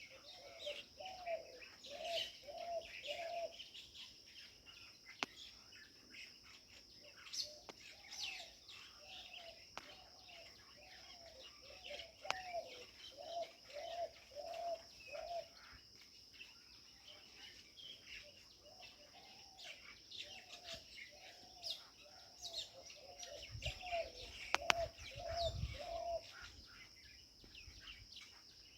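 Many birds chirping together in a tree over a steady high-pitched hum, with runs of short, low rising-and-falling calls repeated about three times a second. A brief low rumble comes about three-quarters of the way through.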